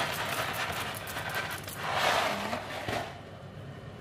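Dry fusilli pasta rattling out of its cardboard box as it is poured into a pot of soup: a dense patter of small clicks that swells briefly and stops about three seconds in.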